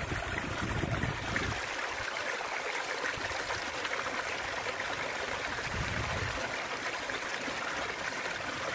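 Water flowing and tumbling over rocks in a small irrigation ditch, a steady rushing. A low rumble on the microphone in the first second or so.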